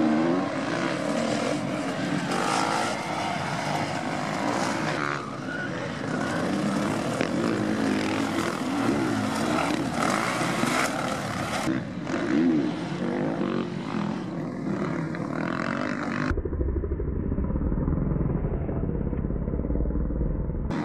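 Motocross bike engines revving up and down as the bikes ride the dirt track, heard in several short clips cut together. In the last few seconds the sound turns dull, with a heavy low rumble and no highs.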